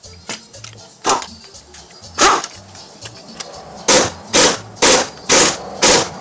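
Air impact wrench hammering in short bursts, about two a second in the second half, driving the harmonic balancer bolt home on the crankshaft until it is tight. A few single sharp bursts come earlier.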